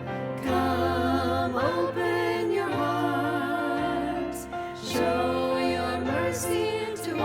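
Voices singing a slow hymn with vibrato, held notes changing about every second, over a sustained instrumental accompaniment.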